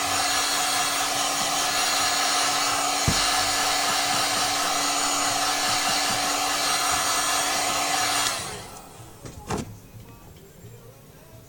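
Electric hot-air blower running steadily with a constant hum, of the kind used to heat a phone screen and soften its adhesive. It shuts off abruptly about eight seconds in. A sharp knock follows about a second later.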